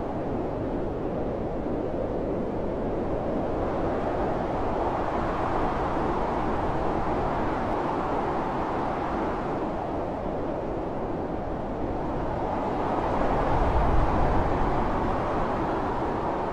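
Blizzard wind blowing in gusts, a steady rushing that swells and eases every few seconds, with a stronger, deeper gust about fourteen seconds in.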